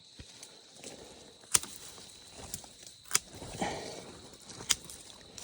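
Hand pruning clippers snipping through branches and vines, sharp snips about every second and a half, with brush and twigs rustling between them.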